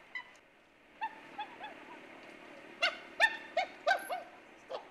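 A run of short hoots, each rising and falling in pitch. A few faint ones come first, then louder ones follow in quicker succession from about three seconds in.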